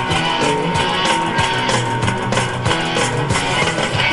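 Live punk rock band playing an instrumental passage between verses: electric guitars over bass and drums with a steady beat.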